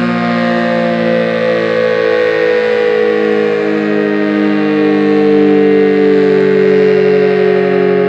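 ACA SuperBanshee outdoor warning siren sounding a loud, steady tone made of several pitches at once, its pitch sagging slightly over the few seconds.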